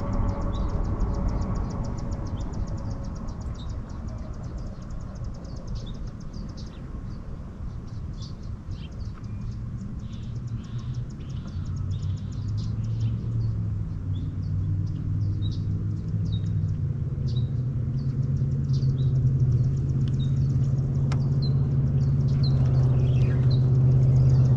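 A distant engine's low hum that grows steadily louder through the second half, with small birds chirping throughout.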